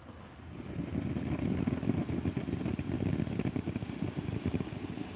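Red, White, and Blue Jubilee ground fountain firework spraying sparks: a steady rushing hiss with dense crackle that builds up about half a second in.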